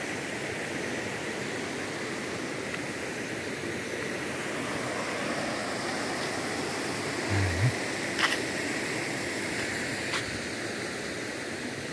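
Waterfall rushing steadily. A short low thump comes a little past halfway, followed by two sharp clicks.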